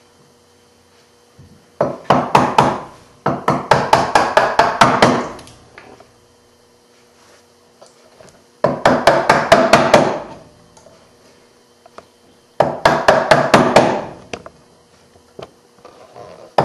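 Bench chisel struck in quick runs of light blows, chopping out the waste of a half-blind dovetail socket along the scribed baseline. There are four runs of rapid taps, each a second or two long, with short pauses between.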